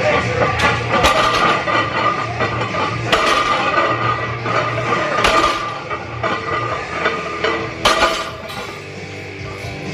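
Iron plates on a loaded barbell clanking as sumo deadlift reps are pulled and set back down: about six sharp metallic clanks at uneven spacing.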